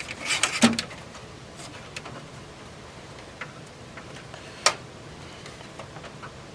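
Hard clicks and light knocks of a motherboard being handled and set onto its standoffs in a metal PC case: a quick run of clicks about half a second in, one sharp click past the middle, and scattered small ticks.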